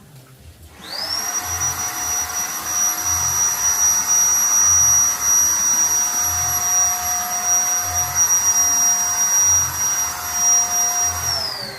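Zipper electric paint spray gun's motor switched on, spinning up with a quick rising whine, running steadily at full speed, then switched off and winding down with a falling whine near the end.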